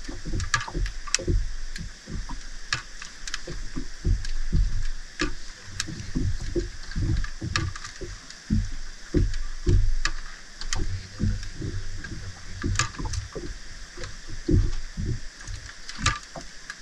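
Water sloshing and slapping against a small boat's hull, in uneven surges, with scattered sharp knocks and clicks throughout.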